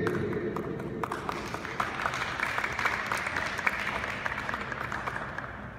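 A small crowd applauding, a dense patter of hand claps that starts about a second in and tails off near the end.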